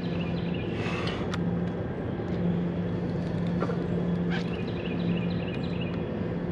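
Steady low hum of a small motor running on a fishing boat, with scattered light clicks and knocks from handling gear on deck.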